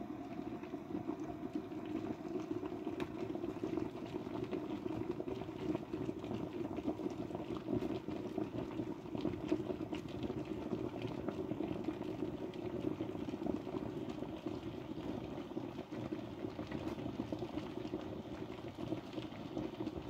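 Small electric kettle heating water close to the boil. A steady low bubbling rumble has taken over from the bright hiss, with single bubbles popping distinctly enough to almost count.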